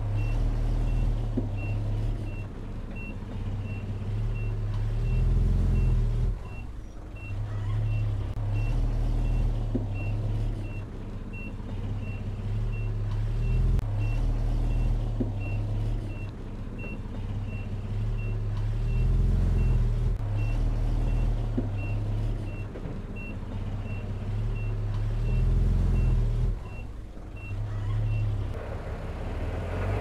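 Bulldozer diesel engine running under load, with a reversing alarm beeping evenly a little over once a second. The beeping stops near the end, and the engine drops off briefly twice.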